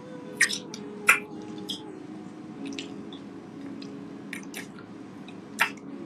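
Wet kissing sounds: a scattered series of short lip smacks and squelches, the sharpest about a second in and near the end.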